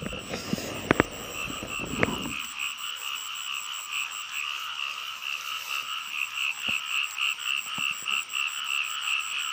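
Frogs calling in chorus, a fast, even pulsing croak. In the first couple of seconds there is also rustling and a few knocks close to the microphone.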